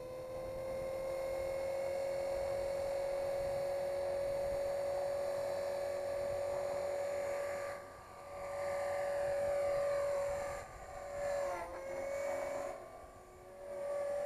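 Tarot 450 electric RC helicopter's motor and rotors whining, settling at a steady high pitch. In the second half the whine drops and swells in loudness several times, with a brief dip in pitch, as it lifts off.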